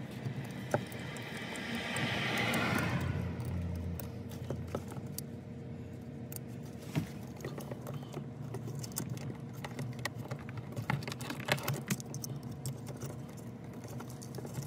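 Small plastic clicks and taps from hands handling a car's cargo-light housing and its wire connector, over a steady low hum. A broader noise swells and fades about two to four seconds in.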